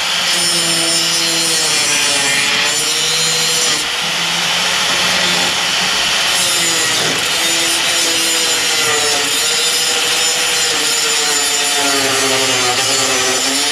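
Handheld electric grinder grinding out the heads of stripped Phillips screws on a lawn tractor's painted panel, a continuous harsh grinding with the motor's whine wavering in pitch as it bites under load.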